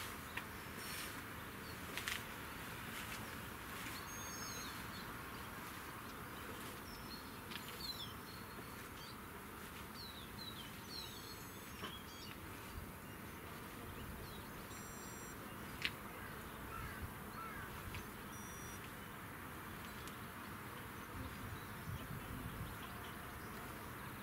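Outdoor ambience: small birds chirping in short calls over a steady faint background noise, with a few sharp clicks, the loudest a little after halfway.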